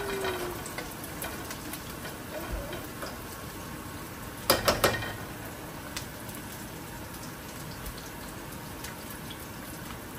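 Onions, garlic and pimento peppers sizzling steadily as they sauté in a pot, with about three quick sharp knocks a little before halfway.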